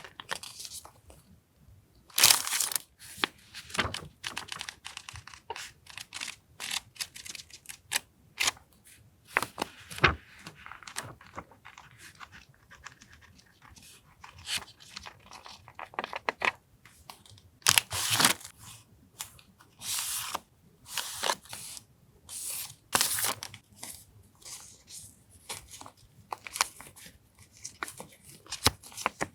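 Paper journaling supplies and their packaging being handled and unpacked: irregular sharp rustles and crinkles, a few louder tearing strokes among them.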